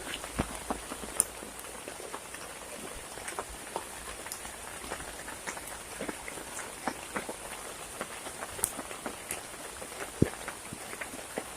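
Rain falling steadily, with drops ticking irregularly and a few louder, sharper drops.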